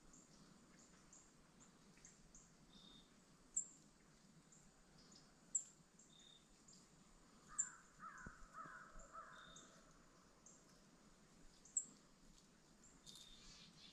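Birds calling, faint against a quiet background: short high chirps every couple of seconds, and a run of about four harsher, falling calls about eight seconds in.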